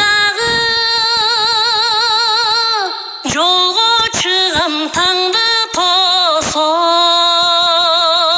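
A woman's voice singing a folk-style song, played by the singing Ala-Too cognac bottle: long held notes with wide vibrato, a run of shorter notes in the middle, then another long held note.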